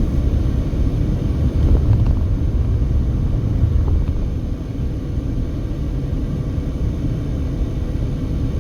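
Steady low road rumble of a car cruising at highway speed, heard from inside the cabin: tyre and engine noise.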